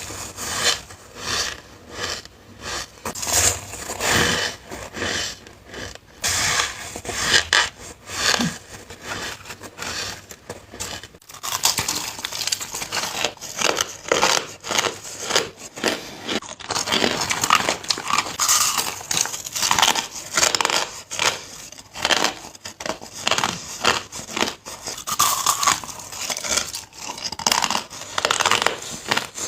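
Hard crushed ice being bitten and chewed close to the microphone: a continuous run of sharp, crackly crunches. There is a brief pause about eleven seconds in, after which the crunching becomes denser.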